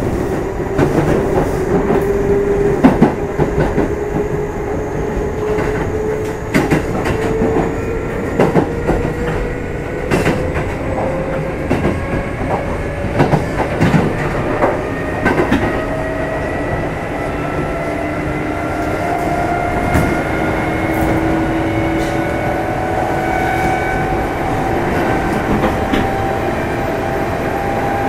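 Kintetsu 2610 series electric train heard from aboard motor car Mo 2668, gathering speed: its motor whine rises slowly and steadily in pitch, over wheels clicking across rail joints.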